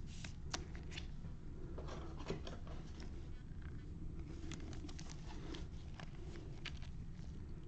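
Trading cards and their packaging being handled: scattered light clicks, slides and crinkles over a steady low hum.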